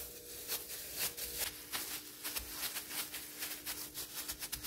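Disposable plastic gloves and cling film crinkling in quick, irregular rustles as gloved hands press and flatten a layer of ground liver pâté, over a faint steady hum.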